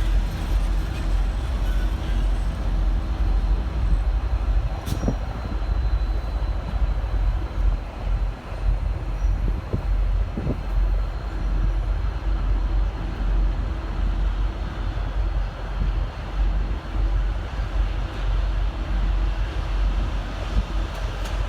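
V/Line N class diesel-electric locomotive idling at the platform: a steady low engine rumble with a faint constant hum. A single sharp click sounds about five seconds in.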